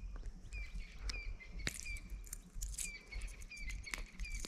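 A bird calling with short, falling chirps, about two a second, over a few sharp light clicks.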